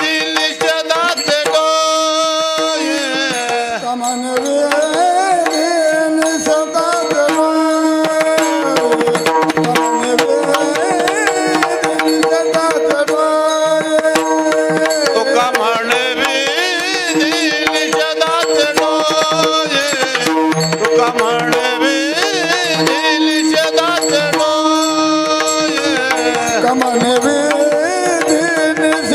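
Marathi kirtan music: a man singing a devotional melody in long, gliding notes without clear words, over a steady drone and tabla strokes.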